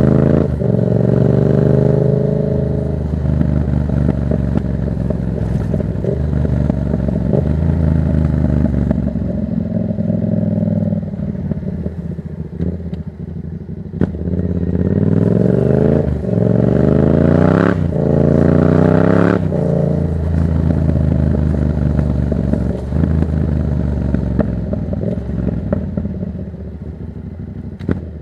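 Yamaha MT-07 parallel-twin engine through an open Black Widow exhaust with no dB killer, pulling hard up through the gears. The pitch climbs in several runs, most quickly in three back-to-back pulls just past the middle, with brief drops at each shift. Between the runs it cruises more steadily.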